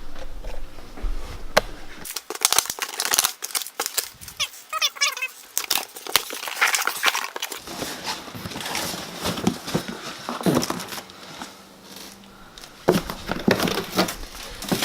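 Coilover packaging being torn open and crumpled by hand: an irregular run of crinkling and tearing with scattered sharp clicks.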